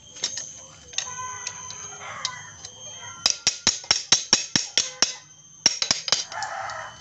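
A rapid run of sharp metallic clicks, about seven a second for nearly two seconds, then a few more after a short pause. This is hand-tool work on metal parts of a Honda Supra Fit motorcycle engine being taken apart.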